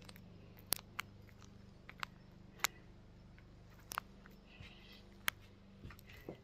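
A few faint, sharp clicks and knocks at irregular intervals, over a low steady hum.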